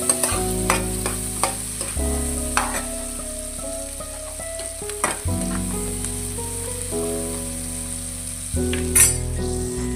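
Onion-tomato masala sizzling in oil in a steel kadai on a low flame while a steel spoon stirs and scrapes it. Sharp clinks of the spoon against the pan come every second or so, the loudest about nine seconds in.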